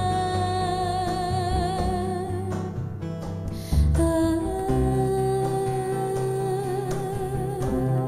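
Small acoustic band playing a slow song: long held melody notes with vibrato, moving to a new note about four seconds in, over acoustic guitar, upright double bass and cajón.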